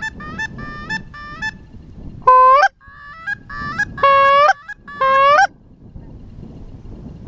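Geese honking: a run of short, quick honks, then three loud, longer honks, each ending with an upward flick in pitch, about a second apart.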